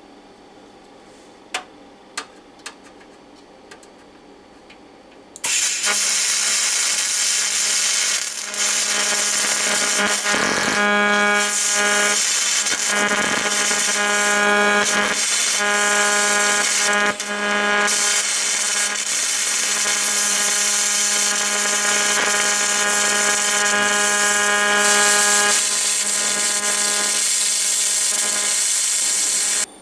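A TIG welding arc buzzing and hissing steadily on thin stainless sheet at low current, starting abruptly about five seconds in and dipping briefly a few times as the torch works along the seam. A few sharp clicks come before the arc starts.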